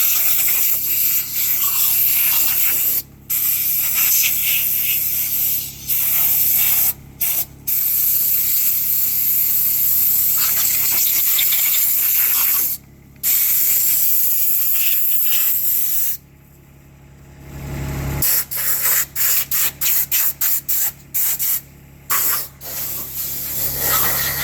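Spray nozzle hissing steadily as it washes down a lawnmower. It cuts off briefly a few times, pauses for a couple of seconds, then goes in many quick on-off bursts as the trigger is pulsed. A low hum comes through during the pause.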